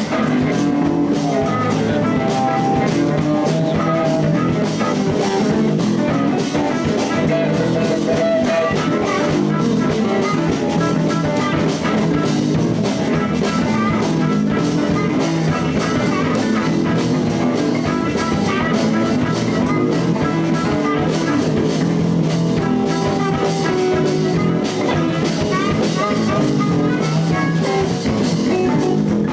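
Live blues band playing an instrumental passage: guitar over a steady drum kit.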